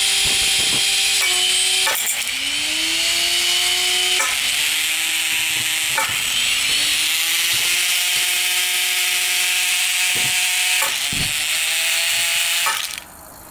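Antweight combat robot's spinning disc weapon whirring at full speed as a piece of wood is pushed into it: several sharp hits, each dragging the spinner's pitch down before it climbs back up. The whirring cuts out suddenly near the end.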